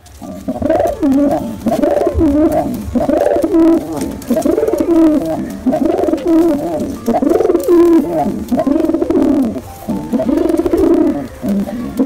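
Male domestic pigeon cooing over and over, a string of low, throaty coo phrases following one another with short breaks.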